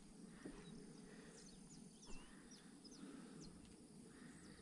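Near silence with faint, short bird chirps in the background, mostly in the middle of the stretch.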